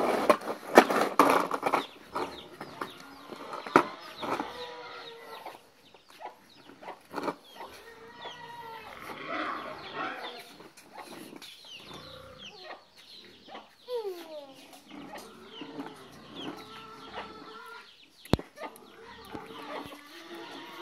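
Chicken clucking in a run of short, bending calls. A loud stretch of rattling and scraping fills the first two seconds, and there is one sharp click near the end.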